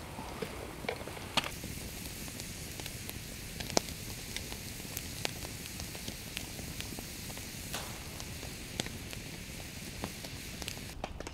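Wood campfire crackling, with sharp pops and snaps scattered irregularly over a steady low hiss.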